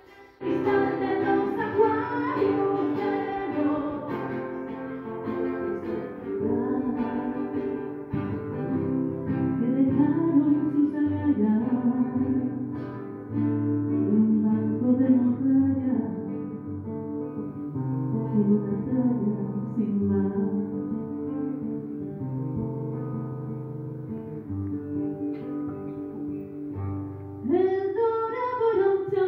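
A woman singing live to acoustic guitar accompaniment; the music comes in suddenly about half a second in.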